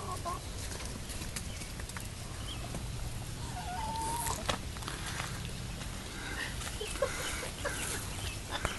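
Domestic hens clucking, with a few short calls scattered through, over a steady low rumble.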